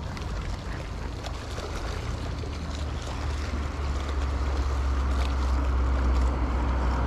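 Wind and small waves with a low rumble that grows steadily louder over several seconds.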